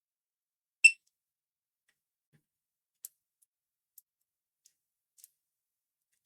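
A single short electronic beep about a second in, followed by a few faint clicks.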